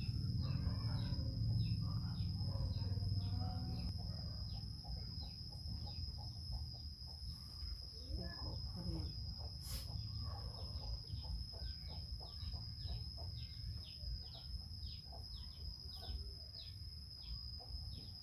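Birds chirping with many short, repeated high calls, thickest in the second half, over a steady high-pitched whine. A low rumble runs through the first few seconds and then eases off.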